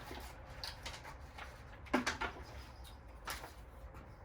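A few small clicks and knocks from the patio heater's igniter battery and cap being handled. The loudest pair comes about two seconds in.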